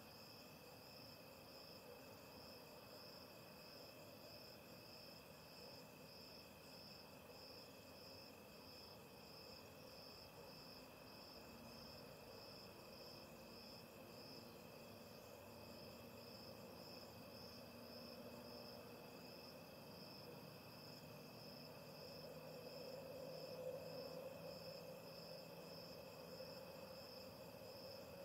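Night insects, crickets, chirping: one pulses evenly about twice a second, and another trills steadily at a lower pitch. A faint low hum swells about three quarters of the way through.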